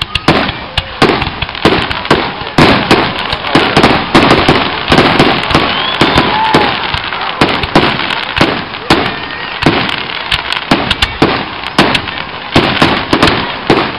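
Fireworks display: aerial shells bursting in quick succession, a dense run of bangs several a second that overlap with hardly a pause.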